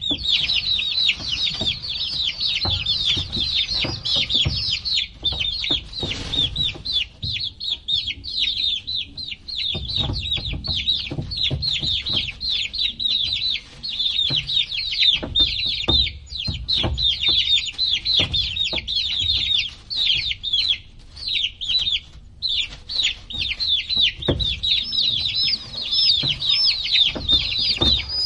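A group of baby chicks chirping continuously, many short high peeps that slide down in pitch and overlap, with occasional low thumps and knocks underneath.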